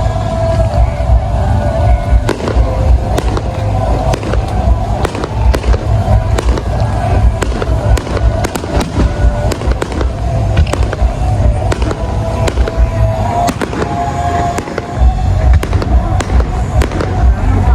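Fireworks bursting and crackling, many sharp bangs in quick, irregular succession over music playing with a heavy low beat.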